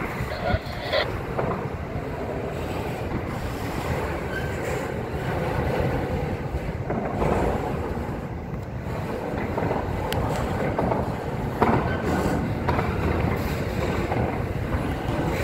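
Norfolk Southern intermodal freight train rolling past: a steady rumble of well cars' wheels on the rails, broken by a few sharp clanks.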